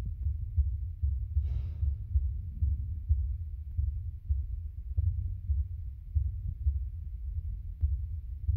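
Deep low pulsing that throbs irregularly, a few beats a second, from the dance's soundtrack over the theatre speakers. A short breathy hiss sounds about one and a half seconds in.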